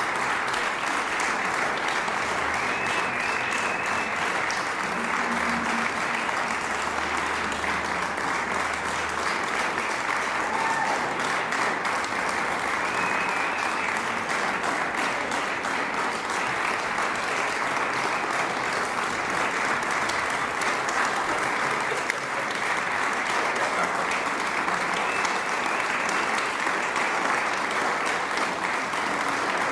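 Audience applauding steadily after a string quartet performance, with dense overlapping clapping at an even level throughout.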